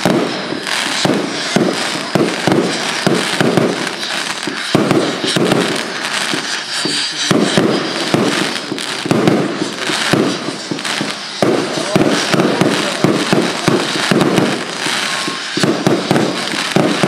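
Consumer fireworks going off in a dense, continuous barrage of rapid bangs and crackles, the pattern shifting every few seconds.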